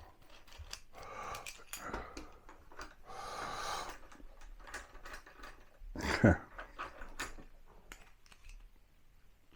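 Metal clamps clicking, knocking and scraping as they are handled and hung on a wall rack, with one short voice-like sound falling in pitch about six seconds in.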